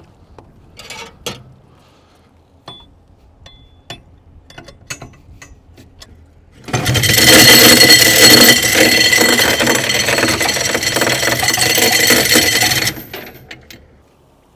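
Anchor chain paying out through the bow windlass as the anchor is dropped: a loud, dense run of about six seconds that starts halfway through and stops abruptly. A few scattered clicks and knocks come before it.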